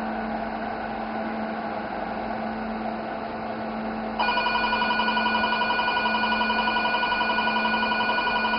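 Velure S5 532 nm diode laser firing through its Mixto VX scanner: its emission beep, a rapid multi-tone beeping of several beeps a second, starts about four seconds in and continues, over a steady low hum.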